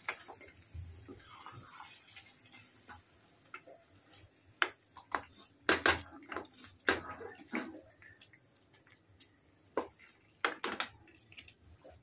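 A wooden spatula scrapes and knocks against a metal cooking pot while turning thick, marinade-coated chicken pieces in oil. The knocks are irregular and come most often around the middle and again near the end.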